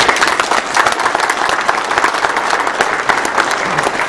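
Audience applause: many people clapping at once, at an even level.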